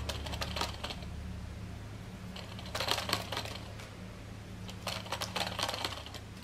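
Braided fishing line being wound by hand around a plastic drink bottle, pulled off a spool, giving quick runs of small ticks and rustles in three bursts a couple of seconds apart.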